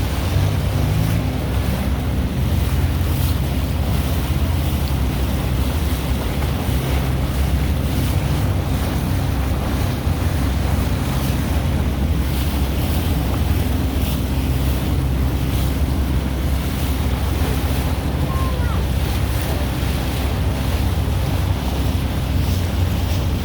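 Wind buffeting the microphone over a steady low rumble of an off-road vehicle's engine.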